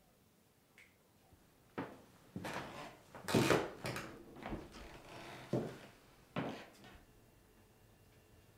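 A run of sharp household knocks and clatters in a small room, spread over several seconds and loudest about three and a half seconds in.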